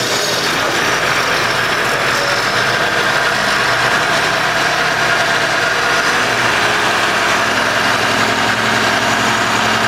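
Demuth DPM mobile drum chipper and the 400 hp Massey Ferguson tractor driving it through the PTO shaft, running at a steady, unchanging level.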